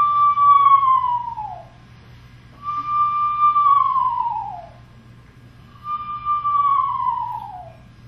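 Cupped-hands whistle imitating an eastern screech owl's territorial call: three long notes, each held level and then sliding down in pitch, about three seconds apart.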